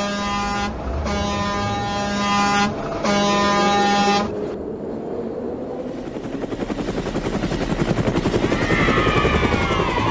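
Toy train horn sounding three toots, the last two longer. About two seconds later, a toy helicopter's rotor starts a rapid chopping that grows louder, with a falling whine near the end.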